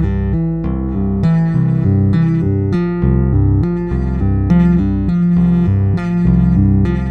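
Two electric bass guitars played with two-handed tapping, hammer-ons and pull-offs with double stops, in a steady flowing pattern of notes grouped in threes. One track is a vintage 1951 Precision Bass, blended with a second bass.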